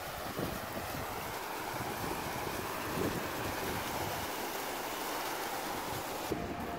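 Outdoor fountain jets splashing steadily into their basin, with wind gusting on the microphone.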